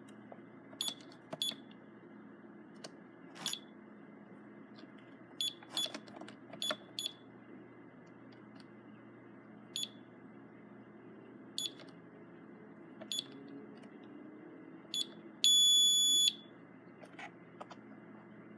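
Alarm-panel keypad beeping as its keys are pressed: about ten short, high chirps at uneven intervals with a few faint key clicks, then one longer, louder beep of nearly a second near the end.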